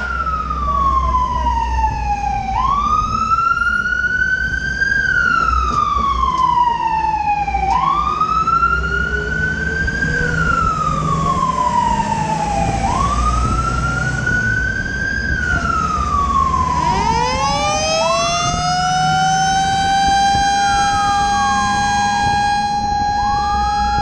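Fire truck siren on a slow wail: each cycle jumps up quickly, then falls slowly, repeating about every five seconds. About two-thirds of the way through, a second siren tone winds up from low and holds steady alongside it. Underneath is the rumble of the truck's engine and road noise, heard from aboard the moving pumper.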